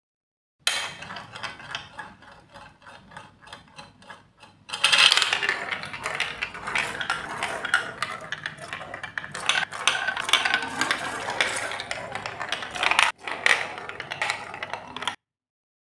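A plastic marble rolling through a plastic block marble run. First comes a quieter, fast, even clicking as it circles the funnel bowl. From about five seconds in it turns into a louder continuous rattling roll along the chutes and curves, with a brief break near the end before it stops suddenly.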